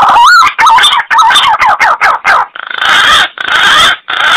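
Recorded green pigeon (punai) calls played as a hunting lure: a quick run of whistled notes gliding up and down, then three longer, harsher rasping notes from about halfway through, which stop abruptly.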